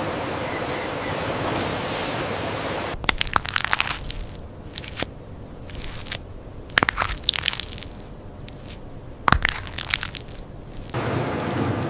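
Steady machine noise, giving way to three short bouts of sharp crunching and crackling with quieter gaps between, then steady noise again near the end.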